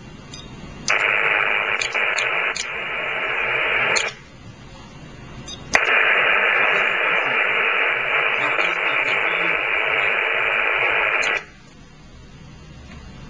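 HF receiver audio from a Barrett 2050 transceiver: narrow-band static hiss from its speaker, heard in two loud stretches of about three and six seconds that switch on and off sharply with a click. Between them the audio drops to faint hiss while the radio changes frequency and the Stealth 940 loop antenna retunes.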